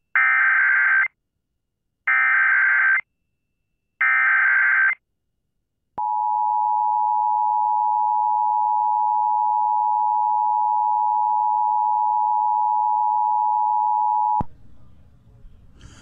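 Emergency Alert System activation: three bursts of SAME header data, each a harsh digital warble about a second long and a second apart, coding a tornado warning. Then the EAS two-tone attention signal sounds steadily for about eight seconds and cuts off.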